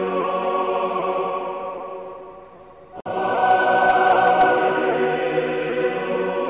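Choir singing held, chant-like chords. The first phrase fades out, and a new chord comes in abruptly halfway through, with a few brief high ticks just after.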